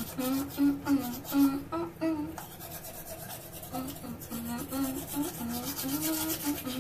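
Manual toothbrush scrubbing teeth in quick back-and-forth strokes. A tune is hummed through closed lips over the brushing.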